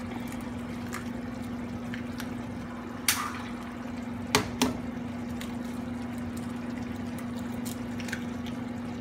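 Tomato sauce simmering in a skillet, a steady bubbling with small pops over a constant low hum. A few sharp taps, about three seconds in and again around four and a half seconds, as eggs are cracked on the pan's rim and dropped into the sauce.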